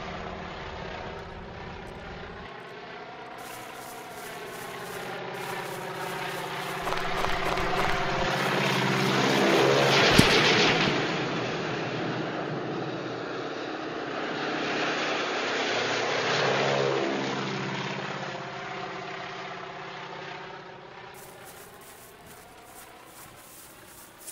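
Low-flying propeller plane, the crop-duster, swooping past twice. Its engine note bends in pitch as it goes by, swells to its loudest about ten seconds in and again a few seconds later, then fades away. A single sharp crack comes at the loudest moment.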